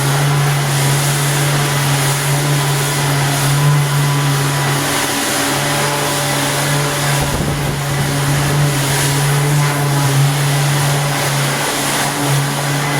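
A machine with an electric motor running steadily, a strong hum under a hiss, with brief wavers about five and seven seconds in.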